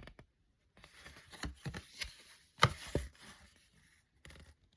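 Cassette tapes being handled: several sharp clacks and knocks with light rustling between them.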